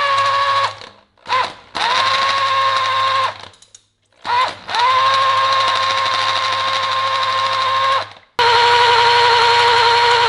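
Electric hand drill driving the oil pump through a long priming rod, pre-lubing the engine: the drill is run in reverse against the load of pumping oil pressure. It starts and stops several times, each start a short rising whine settling into a steady whine, with two brief blips, then runs steadily from about eight seconds in.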